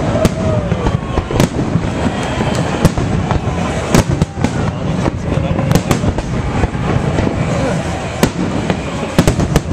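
Aerial fireworks bursting: an irregular run of sharp bangs and crackles over a continuous low rumble.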